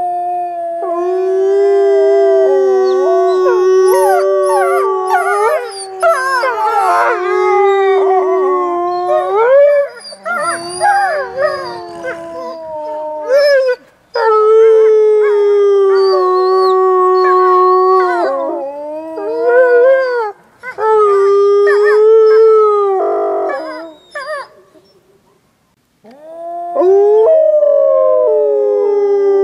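Gray wolves howling in a chorus: long howls held mostly on one pitch, with several voices overlapping and gliding up and down in the first half. The howling breaks off briefly near the end, then a single howl starts up again.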